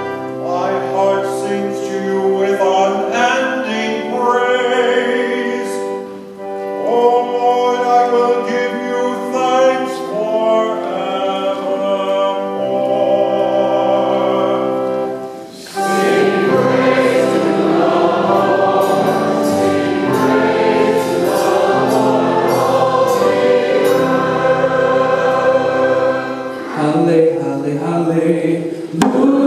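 Church choir singing a hymn, accompanied by pipe organ and a small band. The first half moves in sustained, stepwise chords; about halfway through, the sound changes abruptly to fuller choir singing.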